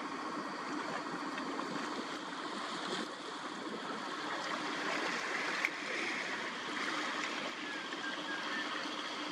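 Steady rushing outdoor harbour noise with a faint, even low hum running underneath, and a few short faint chirps near the end.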